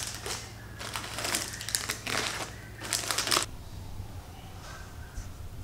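Plastic candy wrappers crinkling as small packs of M&M's are handled and sorted into gift buckets, in a run of crackly bursts that stops about three and a half seconds in.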